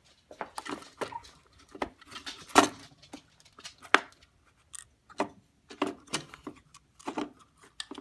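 Irregular clicks and knocks of hard plastic as the parts of a 3D-printed toy robot are handled and set against a wooden tabletop. The loudest knock comes about two and a half seconds in, with a sharp click near four seconds.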